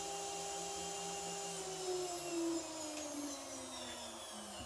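A 2.2 kW water-cooled CNC router spindle whines steadily at about 24,000 RPM. About a second and a half in it begins winding down, its pitch falling steadily as it coasts toward a stop. The VFD's cooling fan runs steadily underneath.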